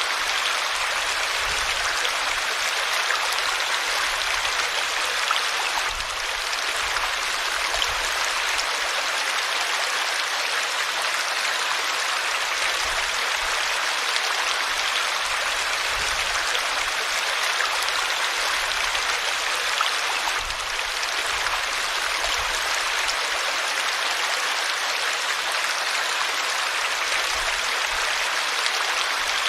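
River water flowing: a steady, even rushing hiss with little deep rumble.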